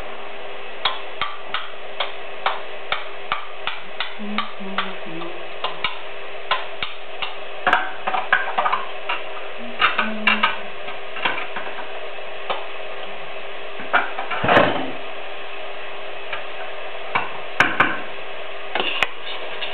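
Light clicks and taps of a spoon and utensils against kitchen bowls, evenly spaced at about two or three a second at first, then irregular, with a longer clatter about fourteen seconds in, over a steady hiss and hum.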